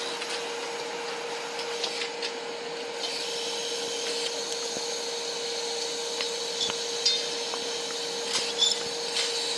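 A machine running with a steady hum on one constant tone, over a scraping hiss, with scattered sharp clicks and ticks.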